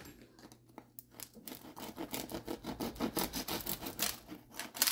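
Serrated knife sawing through the crisp roasted skin of a pig's head, a fast run of short crackly crunching strokes starting about a second and a half in.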